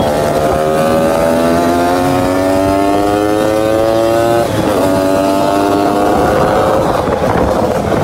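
Motorcycle engine revving during a wheelie, its pitch climbing steadily for about four seconds. It drops sharply about four and a half seconds in, holds lower, then gives way to rougher noise near the end.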